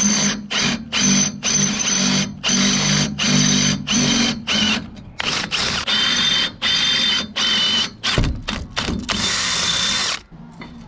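Handheld power drill with a twist bit boring through painted steel, run in short stop-start bursts on the trigger, about two a second, with a steady high whine from the bit. The last burst runs for about a second.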